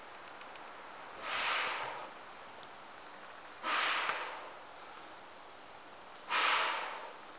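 A woman breathing out hard three times, about two and a half seconds apart: short, forceful exhalations with the effort of doing push-ups.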